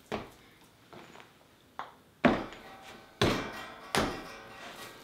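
Lumps of soft clay slapped and slammed down onto a wooden wedging board during wedging: a few light knocks, then three heavy thuds about a second apart.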